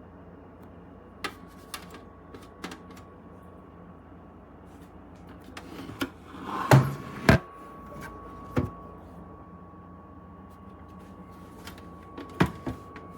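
Scattered clicks and knocks of hard kitchen items being handled, over a steady low hum; a thin steady whine comes in about seven seconds in.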